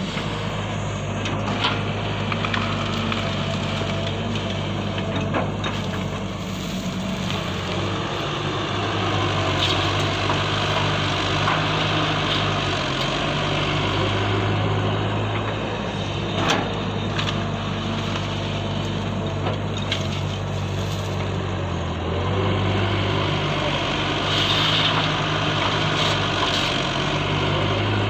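Motors and gears of Huina radio-controlled excavators running with a steady low hum that steps up and down in pitch now and then, with scattered light clicks and knocks.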